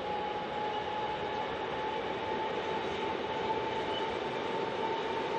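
Incheon Subway Line 1 electric train running slowly over the tracks. It makes a steady rumble and hiss with a single high tone held throughout, rising slightly in pitch.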